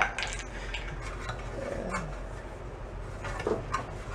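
Antique Briggs & Stratton single-cylinder engine running steadily, with scattered light metallic clicks and knocks from handling close by. The owner takes the engine to be flooded with fuel.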